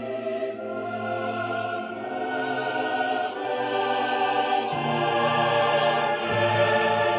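Music with sustained, slowly changing chords in an orchestral, choral style, swelling louder toward the end.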